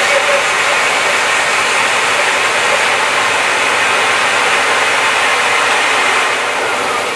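Record Power BS350 14-inch bandsaw running with its dust extraction, a loud, steady, hiss-like machine noise, as the blade cuts through a square timber pen blank fed on the mitre fence. The noise eases slightly near the end.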